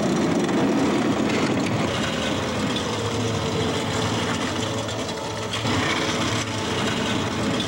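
Beat-up hatchback driving slowly, with a continuous scraping rasp from the chain hanging off its front bumper dragging along the pavement.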